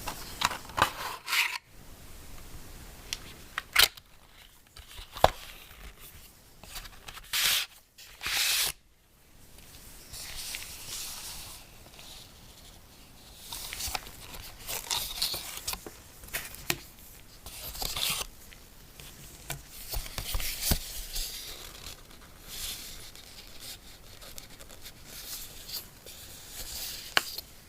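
Apple Watch packaging being opened by hand: paper and cardboard rubbing and rustling, with sharp taps and clicks of handling. Two louder tearing sounds come about a third of the way through.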